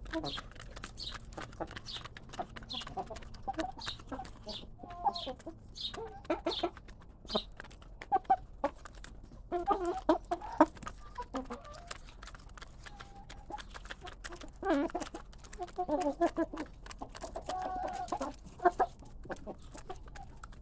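Several hens clucking while they peck at scattered grain feed, their beaks tapping the ground in quick, irregular clicks. The clucking gets busier about halfway through.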